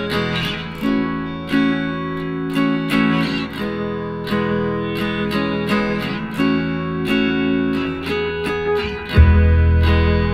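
Background music of acoustic guitar strumming chords at a steady pace. A deep bass line comes in about nine seconds in.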